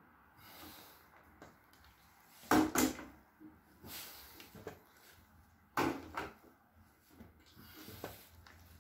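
A metal oil tin used as a hand weight clunks and knocks in time with the repetitions of a floor chest exercise. Two louder clunks come about 2.5 and 6 seconds in, with fainter knocks between them.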